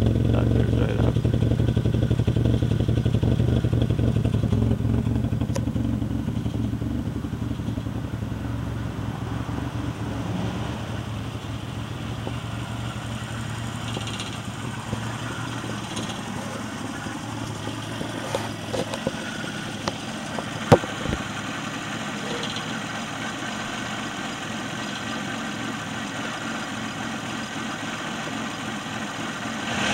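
Bored-and-stroked Suzuki G10 1-litre three-cylinder with a high-lift cam, in a 1991 Chevrolet Sprint, idling with a loping beat. It grows quieter about five seconds in and then holds steady, with one sharp click about twenty seconds in.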